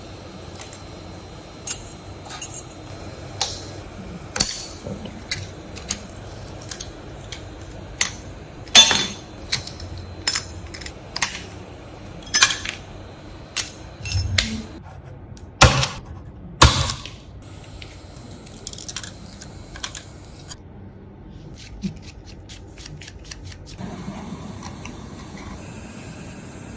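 Irregular sharp clicks and taps of small hand tools and glass during an iPhone 11 back glass repair, over a steady low hiss. The taps come about one or two a second for most of the stretch and grow sparse near the end.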